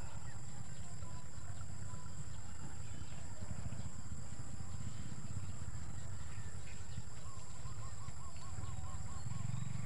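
Wind buffeting the microphone as a steady low rumble, over a constant high hiss. Near the end a bird gives a quick run of about eight short repeated notes.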